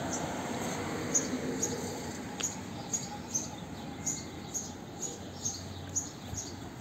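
A small bird chirping repeatedly, short high chirps about two a second, over a steady hum of street traffic.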